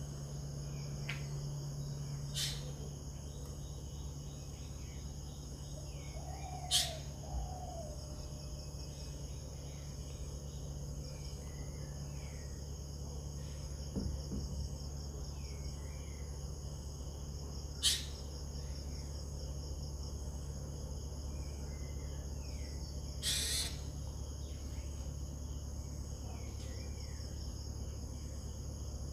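A steady, high-pitched insect chorus of chirring crickets over a low steady hum, with scattered faint bird chirps and a few sharp clicks.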